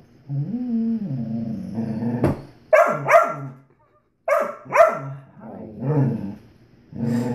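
Dalmatian "talking": a long, low, wavering grumble, then two pairs of short, higher yowling calls and more soft grumbling. It is the vocal protest of a dog begging for food that it is not being given.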